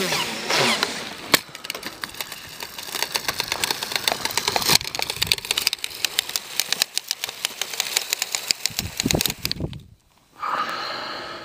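Quadcopter motors whining down as the craft falls, then one sharp crash impact about a second and a half in. Several seconds of dense, irregular crackling follow, and the sound cuts out briefly near the end.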